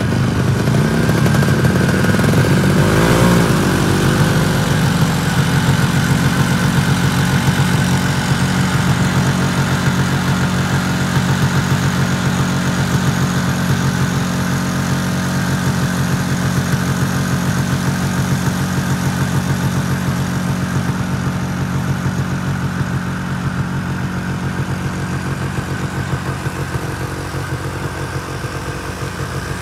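Small snowmobile engine running steadily, its note holding with little change and easing off slightly toward the end.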